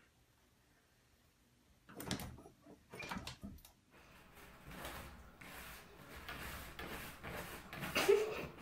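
Light knocks and rattles, then a steady noise, with a short burst of laughter near the end.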